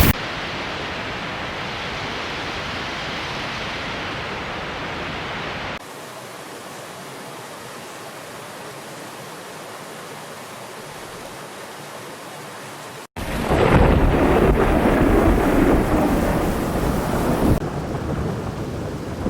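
Storm noise: a steady rush of rain and wind in edited segments. It drops quieter about six seconds in, breaks off abruptly a little past halfway, and comes back louder.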